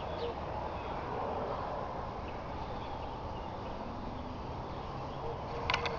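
Outdoor yard ambience: a steady rushing background with faint, scattered distant bird chirps, and a low held cooing note near the end, with a few sharp clicks just before the end.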